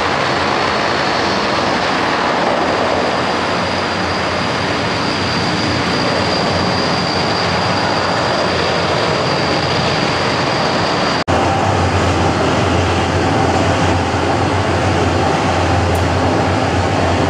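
Airplane engines running loud and steady, with a thin high whine over the rushing noise. About eleven seconds in the sound breaks off abruptly and comes back with a deeper low rumble.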